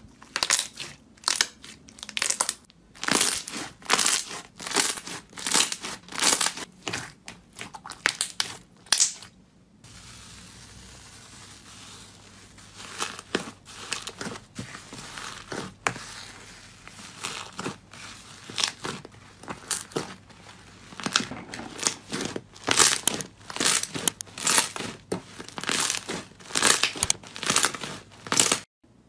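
Slime being squeezed, pressed and pulled by hand, a run of separate crackling, crinkling squishes one after another. The background changes about ten seconds in, where one clip cuts to the next.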